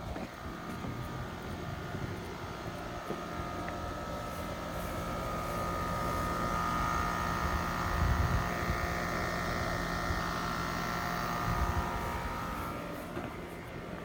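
A passing engine: a steady hum that grows louder to a peak around the middle and fades away near the end, with a couple of low thumps.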